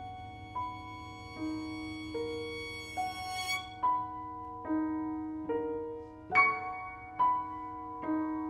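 Cello and piano playing a contemporary classical piece: a repeating figure of notes entering about every 0.8 s over a low held tone, with one louder accented note about two-thirds of the way through.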